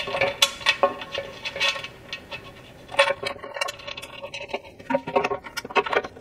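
Irregular light metallic clicks and clinks as a mounting bolt, its spacer and a hex wrench knock against a metal motorcycle skid plate while the long bolt is fitted and started by hand, with a quicker cluster of taps about three seconds in and again near the end.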